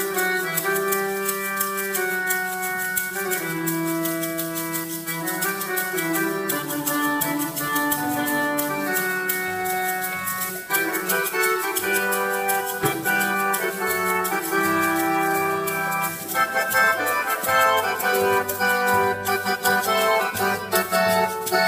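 High school percussion ensemble playing slow sustained chords that change every second or two, with a fast, even ticking running above them.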